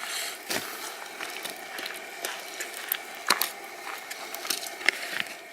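Knife cutting along a northern pike fillet: soft scraping with several sharp ticks as the blade works near the bones.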